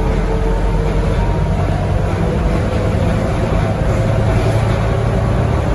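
Scania K230UB single-decker bus under way, heard from inside the passenger saloon: a steady low drone from the rear-mounted diesel engine and drivetrain, with a faint whine above it and road noise.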